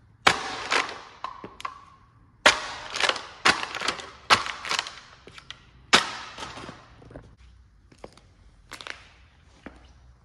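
A thin clear plastic container being stamped on and crushed under a wedge sandal: a run of sharp cracks and crunches, about eight loud ones in the first six seconds, then fainter scattered clicks and taps.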